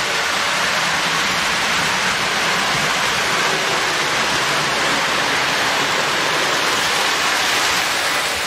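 Post-war electric model train running steadily around the layout: an even rushing clatter of metal wheels on the rails and the locomotive's motor.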